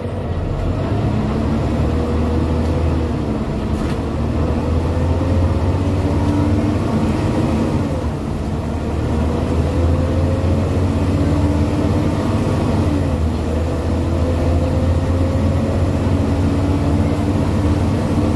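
Scania OmniDekka double-decker bus's diesel engine pulling hard under acceleration, heard inside the upper deck: a heavy low drone whose note climbs and drops back about four times as the bus changes up through its gears.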